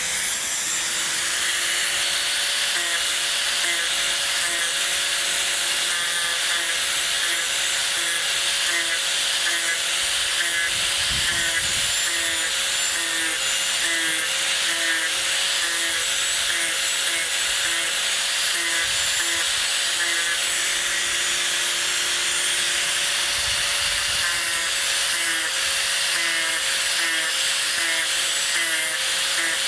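Angle grinder with a 60-grit wheel running steadily while grinding the sides of a wooden walking-cane handle flat. Its whine holds one pitch that wavers slightly, with a lower hum that comes and goes.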